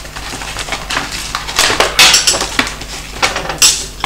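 Plastic packaging of a screwdriver set crinkling and crackling as it is handled and opened, in irregular bursts, loudest about two seconds in and again near the end.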